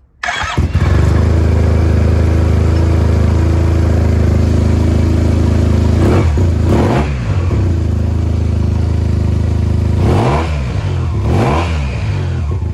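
Yamaha TMAX 530's parallel-twin engine starting up suddenly and idling while still cold, blipped up and back down in revs a couple of times halfway through and a few more times near the end.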